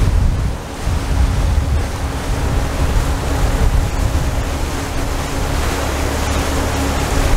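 Water rushing and splashing along the hull of a yacht running at slow speed, mixed with wind buffeting the microphone, over a steady low rumble. A faint steady tone runs under it from about a second in.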